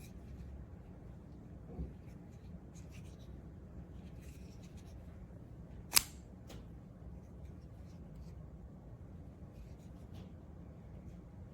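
Quiet room tone with a low steady hum and faint scattered ticks, and one sharp click about six seconds in.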